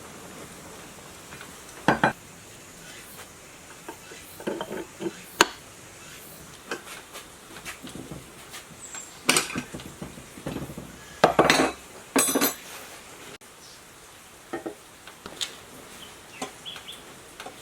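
Metal tools and water-pump parts being handled during reassembly: scattered clinks and knocks, with the loudest ringing clanks a little past the middle.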